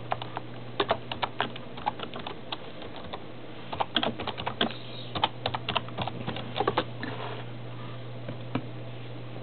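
Crisp, irregular clicks and crunches come in quick clusters, about a second in, again around four seconds, and from five to seven seconds: dry breakfast food being chewed. A steady low hum runs underneath.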